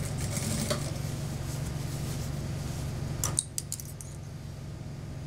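Industrial sewing machine running steadily, stitching a seam through mink fur. It stops about three and a half seconds in with a quick cluster of sharp metallic clicks and jingles.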